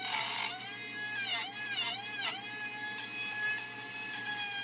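Cordless trim router running at full speed and cutting into MDF along an insert opening: a high whine whose pitch dips briefly about four times as the bit bites, then holds steady.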